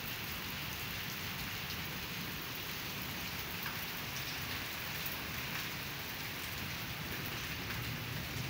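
Heavy rain falling steadily on a paved concrete courtyard, an even hiss of drops splashing on the wet ground.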